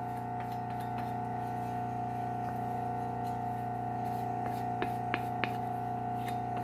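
Work Sharp Ken Onion Elite belt sharpener running steadily with an even motor hum, with a few light ticks about five seconds in.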